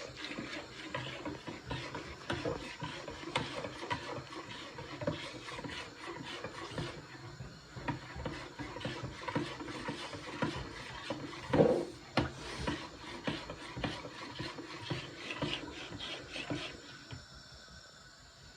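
A utensil scraping and stirring through a bowl of spiced potato filling: a steady run of rough scrapes and small knocks, with one louder knock about twelve seconds in. The scraping dies down near the end.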